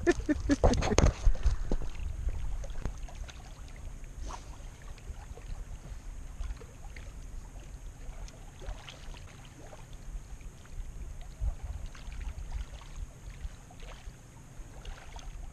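Handling knocks and rustling in the first second or so, then a steady low wind rumble on the microphone and small waves lapping on a rocky shore, with a few faint clicks.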